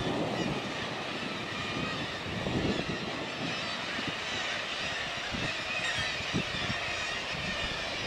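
A cliff seabird colony: many high-pitched calls overlapping without a break. Under it, wind rumbles on the microphone in gusts.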